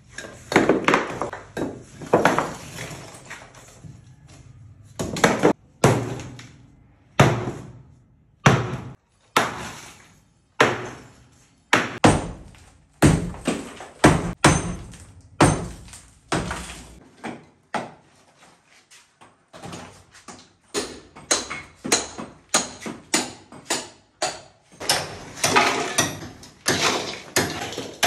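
Demolition work: an irregular series of hard knocks and thuds, each dying away quickly, with a quieter pause about two-thirds of the way through.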